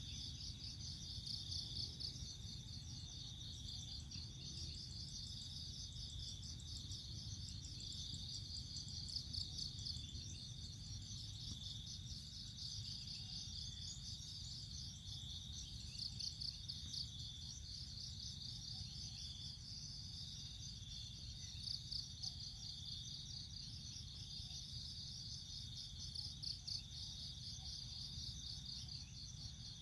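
Insect chorus: a steady high trill that pulses rapidly, over a low steady hum.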